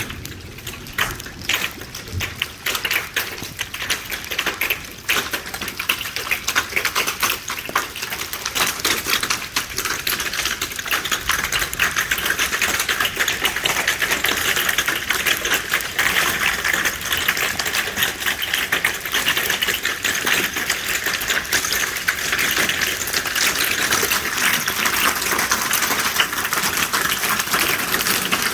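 Hailstones pelting down and striking hard surfaces: a rapid, dense clatter of countless small impacts. It thickens and grows a little louder about ten seconds in, into a steady downpour of hail.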